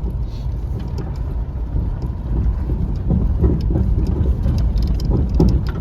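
A pickup truck crawling over a rocky trail in four-wheel-drive low: a steady low rumble, with tyres crunching and many scattered clicks and knocks of rock and gravel.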